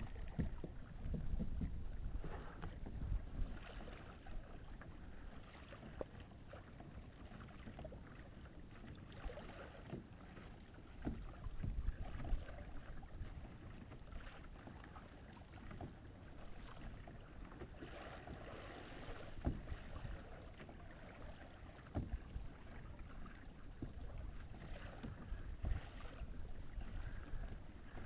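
A kayak moving on open water: water splashing and lapping against the plastic hull, with scattered small knocks and wind rumbling on the microphone.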